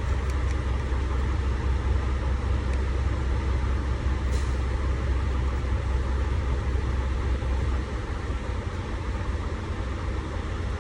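Heavy diesel truck engine idling with a steady low rumble, which eases down about eight seconds in. A faint click comes about four seconds in.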